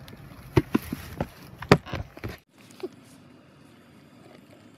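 A quick run of sharp knocks and thuds close to the microphone, about seven in two seconds. They cut off suddenly about two and a half seconds in, leaving faint outdoor background with one small click.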